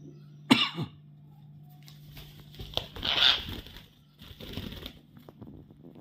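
Pet parakeet calls: a sharp call with a falling pitch about half a second in, then harsher, rasping calls around three seconds and again near four and a half seconds, over a steady low hum.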